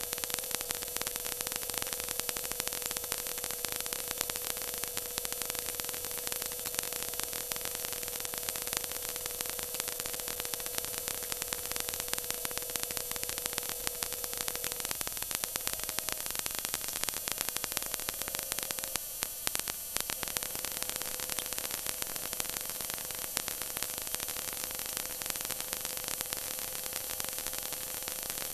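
V8 stock car engine running at speed, picked up by an in-car camera microphone as a harsh crackling hiss over a steady high engine note. The note wavers briefly about halfway through.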